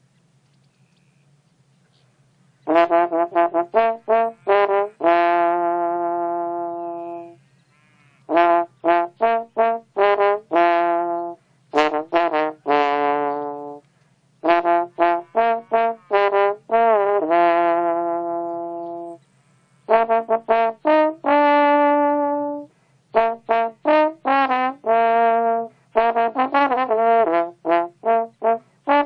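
A melody in a brass-like, trombone-like tone, played in phrases of quick short notes that each end on a long held note, with short rests between phrases. A steady low hum runs underneath.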